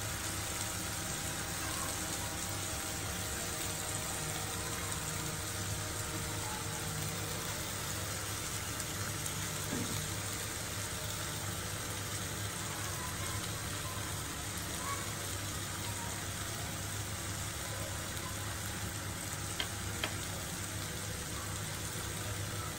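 Steady hiss of a lit gas stove burner, with a lump of charcoal held in its flame to light it. Two light clicks near the end.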